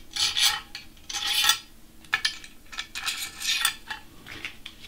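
Small metal parts clinking and rattling in several short bursts, loudest about one and a half seconds in: eccentric spacers and shims being picked up and slid onto the bolts of a CNC gantry plate.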